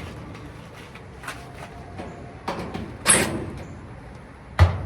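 Metal dryer panels and parts being handled during teardown: a few light clicks, a short scraping slide about three seconds in, and a sharp knock with a dull thud near the end.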